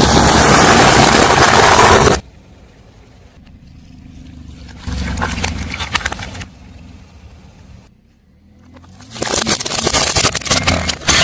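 A car tyre rolling over and crushing objects, heard as crackling, crunching noise in three separate bursts. The first is a loud, dense rush lasting about two seconds. The later two, about halfway through and near the end, are made of many sharp cracks.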